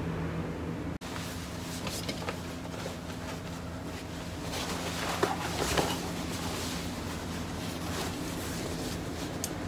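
Scissors snipping through neoprene wetsuit fabric, with the rustle of the suit being handled, over a steady low hum. The loudest snips come about halfway through.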